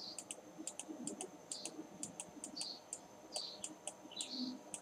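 Light, quick clicking, about four clicks a second, the kind made by a computer mouse or keyboard, with a few short high chirps in between.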